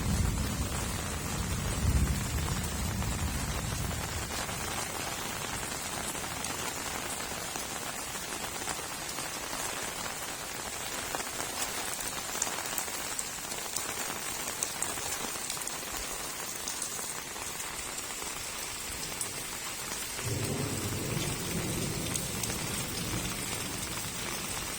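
Heavy rain falling steadily, with low thunder rumbling in the first few seconds and again in the last few seconds.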